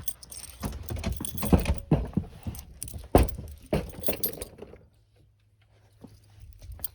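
A bunch of keys jangling, with handling clicks and knocks, as the key for a fire alarm pull station is got out. It stops about five seconds in.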